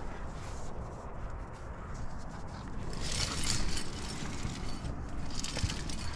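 Hands, clothing and climbing gear scraping and rustling against granite while jamming up a crack, with the loudest scraping about three seconds in and again near the end, over a steady low rumble.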